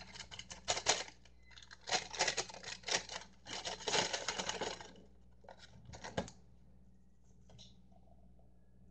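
Ritz cracker packaging crinkling and rustling in quick, dense crackles for about five seconds as a cracker is taken out, then quieter, with a couple of sharp clicks.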